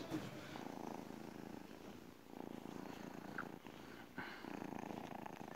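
Tabby kitten purring while being stroked, faint and steady in several long stretches with brief breaks between them.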